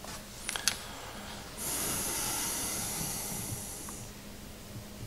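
A couple of small clicks, then a steady hiss for about two and a half seconds that starts suddenly and fades away.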